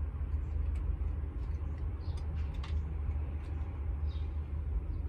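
Two cats eating at a bowl, faint irregular clicks over a steady low rumble, with a few faint short high chirps about every two seconds.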